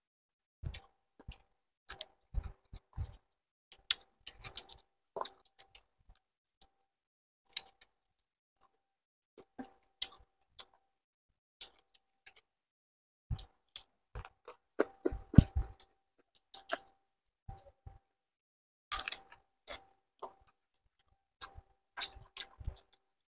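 Eating sounds of people chewing fried chicken feet: irregular wet mouth clicks and lip smacks, with a louder cluster a little past the middle.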